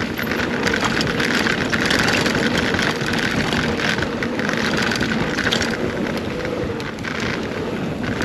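2021 Scott Spark 970 full-suspension mountain bike running fast down a dirt trail: steady tyre and rushing-air noise, with many small knocks and rattles from the bike over bumps.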